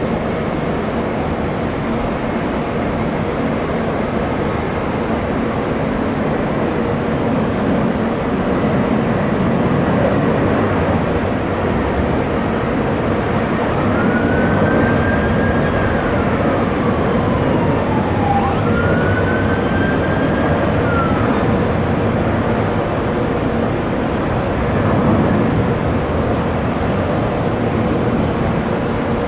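Jet airliner engines running with a loud, steady noise. About halfway through, a siren wails twice, rising and falling in pitch.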